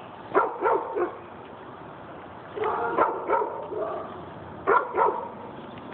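A dog barking: short barks in three separate bunches.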